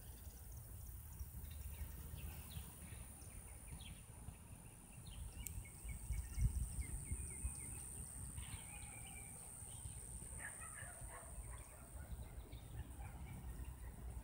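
Quiet outdoor ambience: a low wind rumble on the microphone, surging about six seconds in, with faint bird chirps scattered through.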